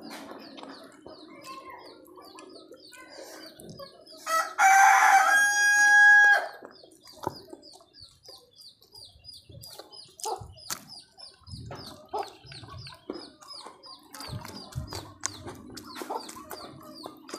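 A rooster crows once, loudly, for about two seconds starting about four seconds in. Throughout, a high chirping repeats steadily about three times a second, with scattered soft clicks and eating noises close to the microphone.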